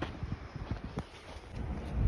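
Footsteps of a hiker on a trail, two sharp steps about a second apart, over a low rumble of wind on the microphone.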